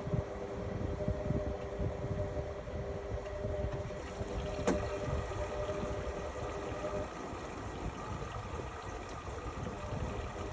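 Indesit MyTime EWE 71252 washing machine running: a low rumble with a steady hum over it that drops away about seven seconds in, and one sharp click near the middle.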